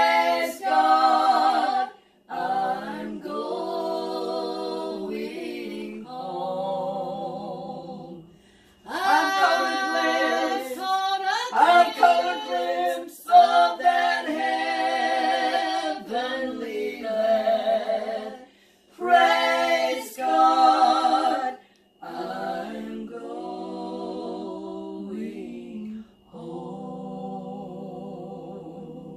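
Three women singing a worship song together a cappella, with no instruments, in long held phrases separated by short breaths, the last phrase softer.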